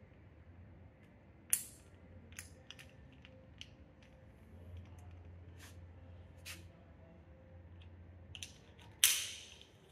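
Faint handling of rope and metal rigging hardware (PulleyOne pulleys and carabiners): scattered clicks and light rustles as rope is threaded and hardware clipped, with a sharp clack about a second and a half in and the loudest clack near the end, which trails off briefly.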